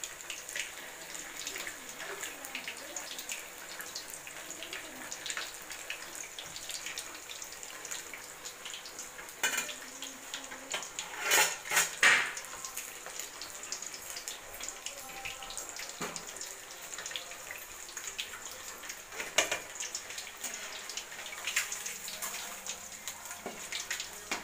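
Masala-coated fish pieces deep-frying in hot oil in an aluminium kadai: a steady sizzle with crackles. Several louder scrapes or knocks, which the pots-and-pans tag and the perforated ladle seen in the pan point to as the ladle against the kadai, stand out, the loudest about halfway through.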